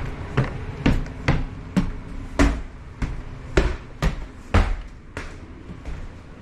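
Heavy footsteps climbing stairs, about two steps a second for some five seconds, then fading.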